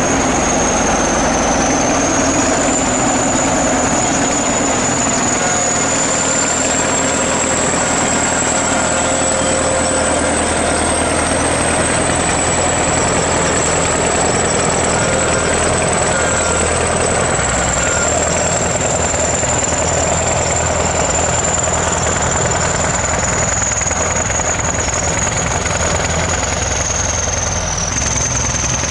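ChTZ T-170 bulldozer's diesel engine running steadily, with a thin high whine above it that drifts slowly up and down in pitch.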